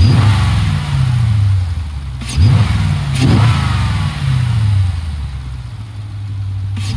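Jeep Grand Cherokee SRT's 6.4-litre HEMI V8, breathing through a freshly fitted K&N cold air intake, revved in quick blips: the revs jump up at the start, twice around two and a half to three and a half seconds in, and again at the end, each time sinking slowly back toward idle.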